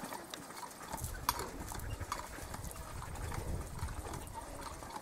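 Hand water pump being worked: irregular clanks and knocks of the pump handle, with a low rumble from about a second in.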